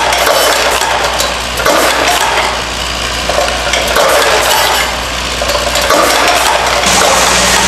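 Delta Counter LCM22 piece-counting machine running: brass fittings clatter and clink as they are fed and counted down the chute into a box, over a steady low machine hum. The clatter swells and eases every couple of seconds.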